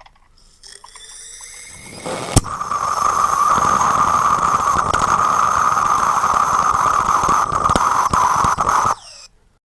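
Butane and nitrous oxide amateur liquid rocket engine firing on a fuel-rich hard start. Propellant flow hisses quietly and builds, then a sharp crack about two seconds in marks ignition. The engine then burns loudly on low power for about six and a half seconds with a steady high-pitched squeal, before the combustion goes unstable and the flame goes out abruptly.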